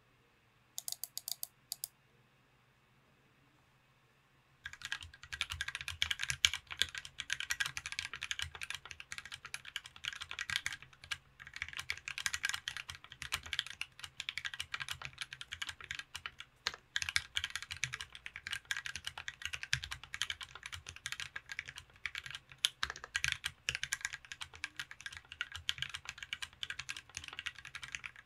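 Mechanical keyboard with lubed and filmed Gateron Black Ink linear switches, in an aluminum TOFU60 case with a brass plate and GMK Delta keycaps, being typed on. A short burst of clicks about a second in, a pause, then fast continuous typing from about five seconds in.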